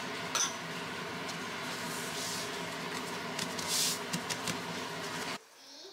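A steady low hum, over which a thin phyllo pastry sheet rustles as it is laid down and pressed flat by hand. The rustle is loudest about four seconds in, and the hum cuts off abruptly near the end.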